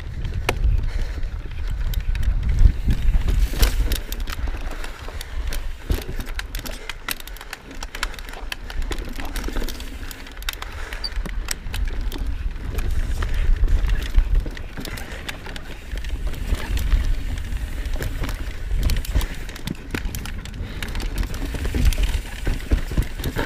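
Knolly Fugitive mountain bike riding fast down rough dirt singletrack: wind buffeting the microphone in a constant unsteady rush, with tyres rolling over dirt and roots and frequent sharp clicks and clatter from the bike over bumps.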